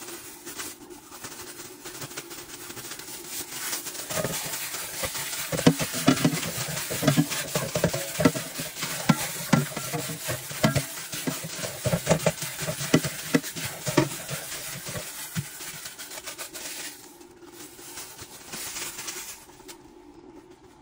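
Seasoned raw beef and chicken pieces being stirred and tossed in a metal pot: wet squelching and rustling with quick irregular knocks and clicks against the pot. The mixing is busiest from about four seconds in to about fifteen seconds, then dies down.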